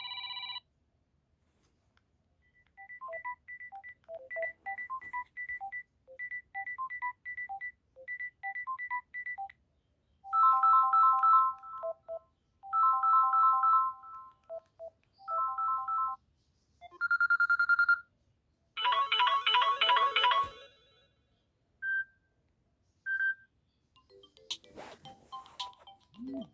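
Samsung Galaxy A02 phone ringtones played one after another: first a tune of short, plucked-sounding electronic notes, then several bursts of repeated chiming chords, a single held tone and two short beeps. Each snippet is brief, and there are short gaps between them.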